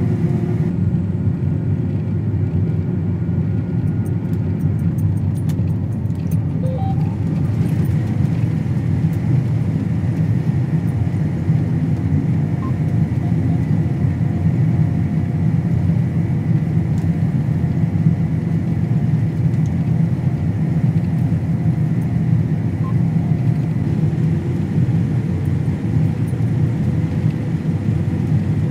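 Combine harvester running steadily while cutting: a constant low engine and machinery drone with a faint, steady high whine over it.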